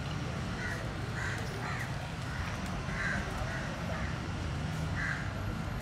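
Birds calling: a string of short calls, irregularly spaced at about one or two a second, over a steady low background rumble.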